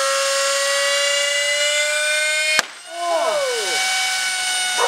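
High-speed vacuum-cleaner motor spinning a CD, a loud whine with many overtones that climbs slowly in pitch as it is dialled up. About two and a half seconds in, a sharp crack as the CD shatters at its critical spin speed; the whine drops away and the motor runs on more quietly at a slowly falling pitch. Excited shouts follow the crack.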